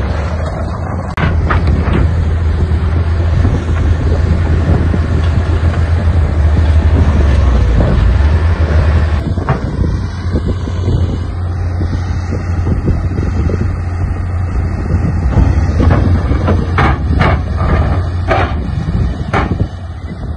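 Diesel engine of heavy earthmoving machinery running steadily under load, with several sharp knocks and clanks in the last few seconds.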